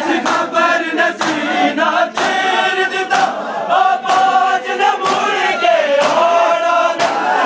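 A crowd of men chanting a Shia lament in unison, loud, with sharp hand slaps on bare chests landing in time about once a second: matam, ritual chest-beating.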